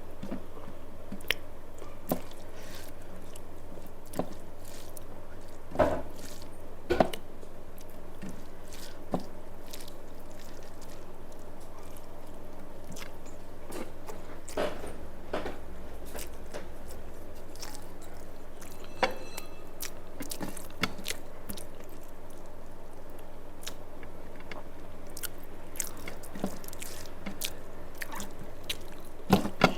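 A person eating rice with curry: chewing and wet squishing of food, with scattered short clicks and smacks, over a steady background hum.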